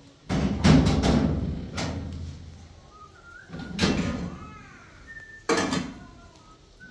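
Kitchen clatter: cabinet doors and cookware knocked and bumped as they are handled, a quick run of knocks in the first second and then single knocks every second or two.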